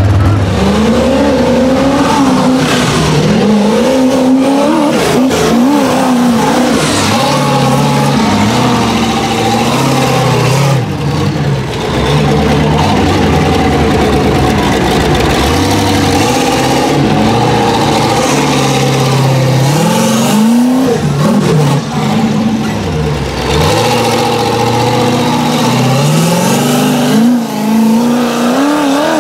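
Rock bouncer buggy's engine revving hard under load on a steep dirt hill climb, its pitch rising and falling again and again.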